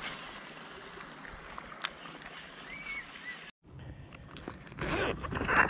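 Outdoor background noise with a few faint chirps and clicks. After a sudden cut, louder rustling and handling noise builds up toward the end.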